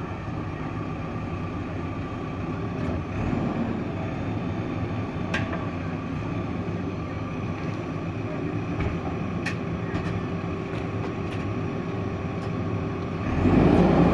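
JCB 3DX backhoe loader's diesel engine running steadily, with a few sharp knocks scattered through it. About a second before the end it gets suddenly louder, as if revved up under load.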